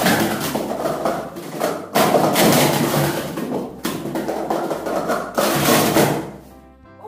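Quick hollow clatter of plastic sport-stacking cups being stacked and brought down, over background music. It fades out near the end.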